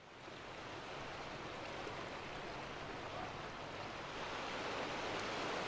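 Steady rushing outdoor noise of water and wind at a harbour, slowly growing louder, with a faint low hum underneath.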